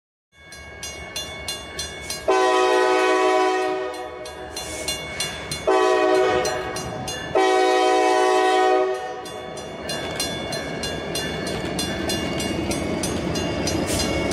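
Grade-crossing bells ringing at a steady quick pace while a Norfolk Southern diesel locomotive sounds its air horn three times, long, short, long, as it approaches the crossing. After the last blast the locomotives' diesel engines and wheels grow louder as the train nears.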